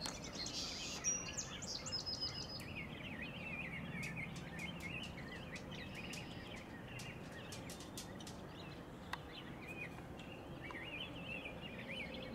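Several small songbirds chirping and twittering in short, quick, jumbled notes over a steady background hiss, with scattered sharp high ticks.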